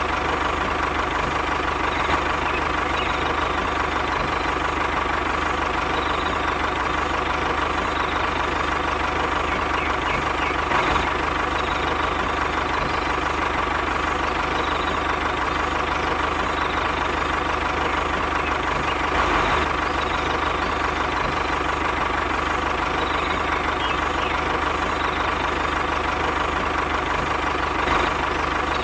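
Miniature toy tractor running steadily with an engine-like drone and a constant whine, and a few soft knocks as it tows the second toy tractor.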